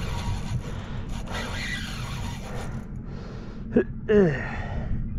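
Steady low rumble of wind and boat noise on the microphone. About four seconds in, an angler tired from fighting a fish on a spinning rod lets out two short grunting breaths that fall in pitch.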